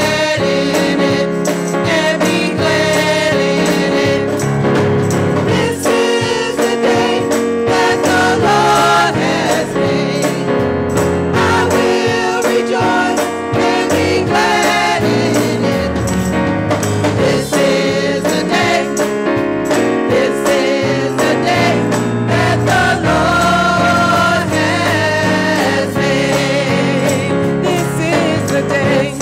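A small gospel choir singing together into microphones, with a live band including an electric guitar accompanying.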